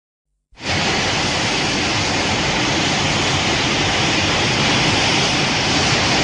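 Sound effect from the 1984 Godzilla film: a loud, steady rushing noise with no pitch, cutting in sharply about half a second in and holding even throughout.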